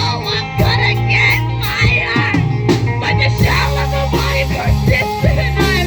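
Live rock band playing, with guitar, a sustained bass line and drums keeping a steady beat.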